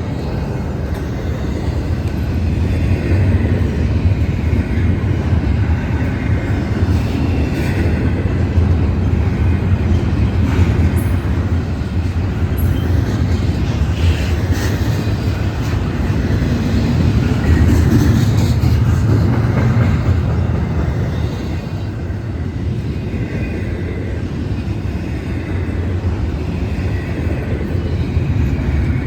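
Union Pacific freight train rolling past: a steady, loud rumble of railcars on the rails that swells and eases slightly as the cars go by.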